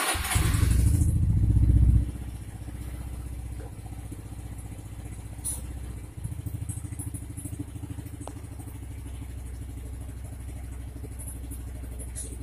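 Motor scooter engine running, louder for about the first two seconds, then idling steadily. A faint click or two sound over it.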